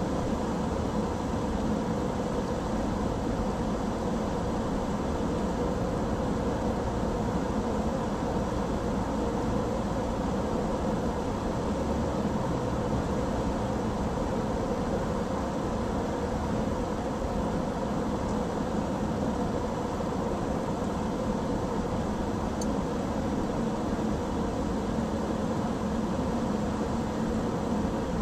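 Steady road and engine noise of a car cruising at an even speed on a smooth multi-lane road.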